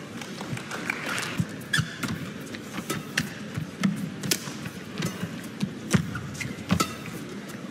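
Badminton players' shoes squeaking and thudding on the court mat, with sharp racket-on-shuttlecock hits as a rally gets going near the end.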